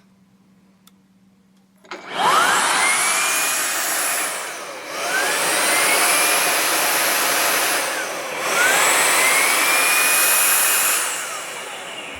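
Jigoo V700 vacuum motor starting about two seconds in and running loudly with a rising, then steady whine, which surges three times with short dips between before winding down near the end.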